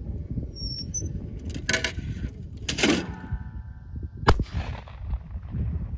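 A 28-gauge CZ Teal over-and-under shotgun fires a single sharp shot about four seconds in, followed by a short echo. Two shorter noises come before it, and wind buffets the microphone throughout.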